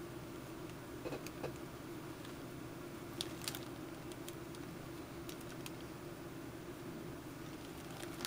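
Quiet room tone with a steady low hum and a few faint light clicks and taps from things being handled on the workbench, about a second in and again around three and a half seconds in.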